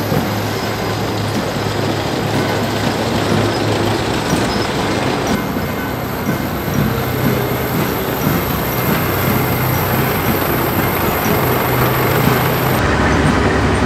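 A column of tracked armoured vehicles, a tank followed by self-propelled howitzers, driving past on cobblestones: heavy diesel engines running with a steady low drone under the clatter of their tracks. Near the end the low rumble deepens as a vehicle passes close.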